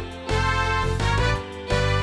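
Upbeat background music with a bass line and keyboard-like notes.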